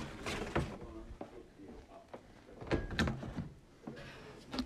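Cardboard box and packaging being handled: rustling and knocks in three clusters, near the start, about three seconds in, and a sharp knock near the end.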